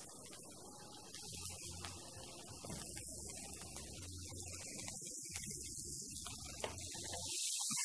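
Chopped onion and sliced sucuk sausage sizzling faintly in hot olive oil in a frying pan, under a steady low electrical hum. The sizzle gets a little louder near the end.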